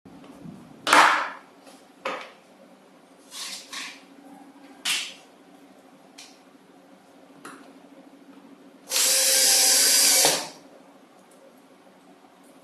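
Cordless drill driving a screw into a plastic tricycle seat in one steady run of about a second and a half, starting about nine seconds in. Before it come a few short knocks and clatters from the plastic parts being handled.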